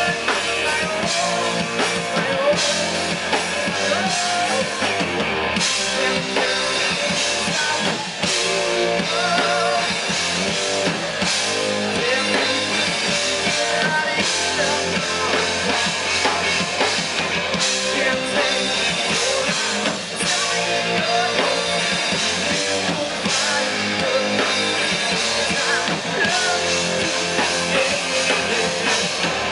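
Rock band playing live: two electric guitars, bass guitar and drum kit.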